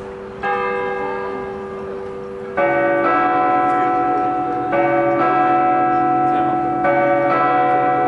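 Hofkirche church bells ringing: several bells struck again and again, each strike renewing a long, layered ringing. The peal fills out and grows louder a couple of seconds in, with new strikes coming in pairs about every two seconds.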